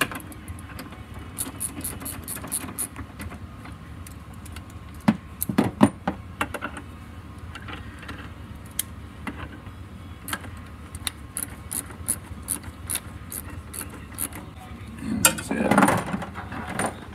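Hand ratchet clicking in quick runs as the air-box cover bolts are run down, with metal clinks and a couple of louder knocks about five seconds in, and a louder clatter near the end.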